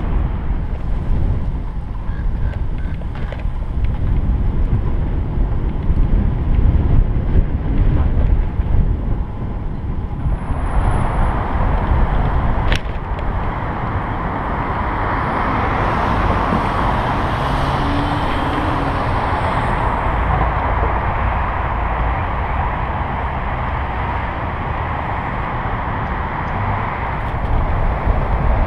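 Wind rumbling on a bicycle-mounted camera's microphone while riding, mixed with tyre and passing road-traffic noise. About ten seconds in the sound changes to a steadier, hissier rush.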